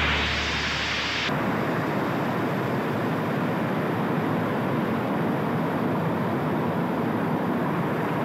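Many automatic weaving looms running together in a weaving shed, a dense, steady mechanical clatter and hiss that sets in about a second in.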